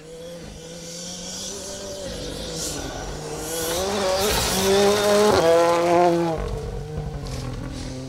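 Ford Fiesta rally car driven flat out past on a loose gravel stage. The engine climbs in pitch as it approaches and is loudest about four to six seconds in, with a gear change in the middle, over the hiss of tyres spraying gravel. It then fades away as it passes.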